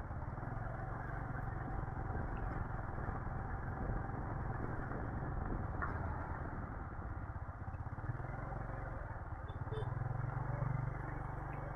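Motorcycle engine running steadily at low riding speed, heard from the rider's seat, with a constant low hum and road rumble.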